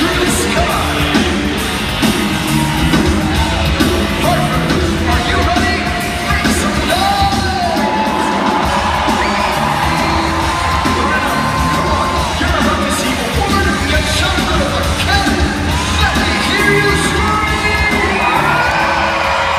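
Loud show music with singing, and yells and whoops from the crowd.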